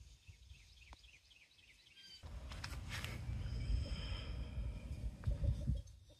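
Outdoor wind rumble on the microphone, with a few sharp clicks about halfway through as a propane cylinder's valve and regulator are handled, and faint bird chirps.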